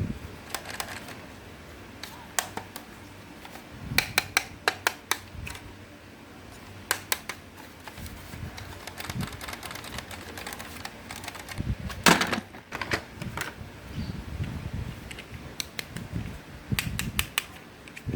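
Small hard plastic objects being handled and knocked together: scattered clusters of sharp clicks and clatter, the densest run about four seconds in and the loudest clatter about twelve seconds in, with soft thumps later on.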